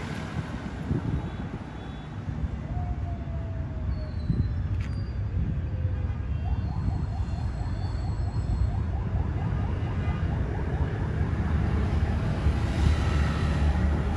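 Low, steady rumble of the D10E-236 diesel locomotive and motorbike traffic at a level crossing. A faint tone falls slowly a few seconds in, and a faint, rapidly repeating tone follows in the middle.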